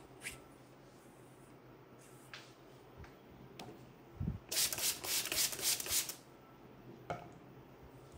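Hand-pumped water spray bottle squirted several times in quick succession, a run of hissing sprays lasting under two seconds about halfway through, just after a brief low thump. Soft rubbing and rustling of hair comes before and after.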